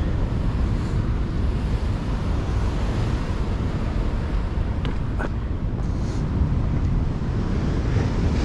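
Wind buffeting the microphone over the steady rush of rough surf breaking on the shore.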